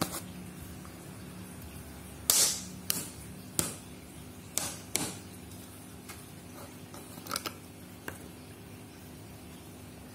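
About seven sharp clicks and knocks scattered over several seconds, the loudest about two seconds in, over a faint steady hum.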